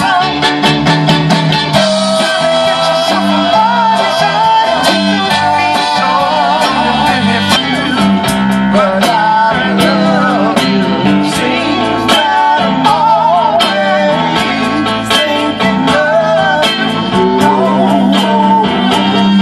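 A Motown song played by a band, with a lead vocal over a steady drum beat, bass and guitar.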